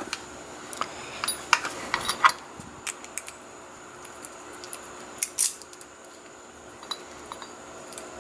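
Small metal clicks and clinks of hand tools on a Yale euro lock cylinder as its retaining clip is worked off, a cluster of clicks about two seconds in and the sharpest couple about five seconds in.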